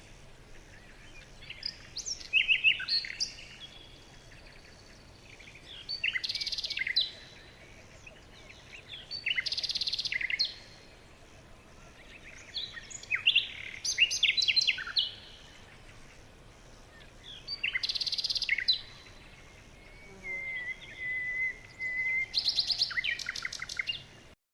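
A bird singing in short chirping phrases, about one every four seconds, each lasting roughly a second, with a thin wavering whistle between two phrases near the end.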